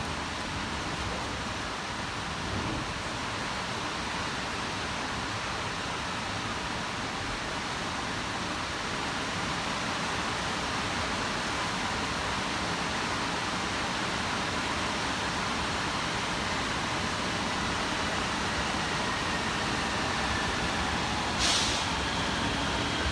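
A train running alongside the platform, a steady rushing noise that slowly grows louder. Faint whining tones glide in pitch near the end, and one sharp click comes just before it ends.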